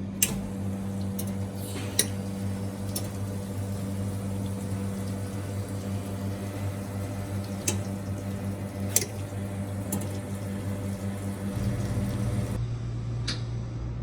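Espresso machine humming steadily with water running, and a few sharp clinks scattered through it.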